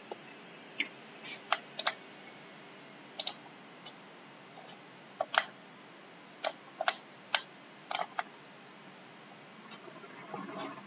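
About a dozen short, sharp computer mouse clicks at irregular intervals, some in quick pairs like double-clicks, over a faint steady hiss.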